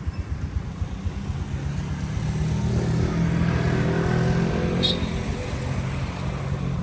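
Motor vehicle engine running on the road, with a steady low rumble that swells through the middle as another vehicle passes or the engine speeds up; a short high chirp sounds briefly about five seconds in.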